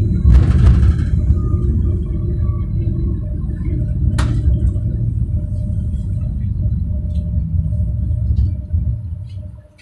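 Bombardier NGT6 low-floor tram running on its rails: a loud, steady low rumble with a faint steady tone above it and one sharp click about four seconds in. The rumble dies away near the end.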